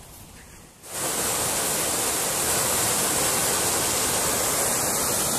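Water rushing steadily over a small river weir, the dam's overflow pouring into the pool below. It cuts in suddenly about a second in and stays loud and even.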